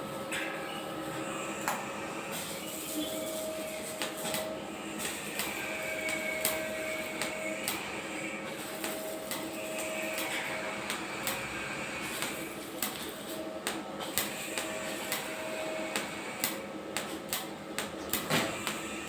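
TIG welding arc on stainless steel: a steady hiss with frequent sharp ticks and crackles, and a faint steady tone that comes and goes.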